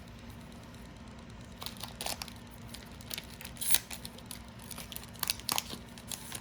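Trading cards and their foil pack wrapper being handled: irregular rustling and crinkling that starts about a second and a half in, with the loudest crinkle near the middle.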